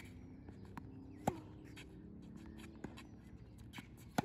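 Tennis rally: the sharp pops of a tennis ball being struck by rackets and bouncing on a hard court. The loudest pop comes about a second in and another comes near the end, with softer taps in between.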